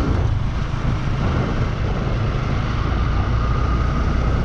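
Motorcycle riding at a steady cruising speed: a steady low rumble of engine and road noise, unchanged throughout.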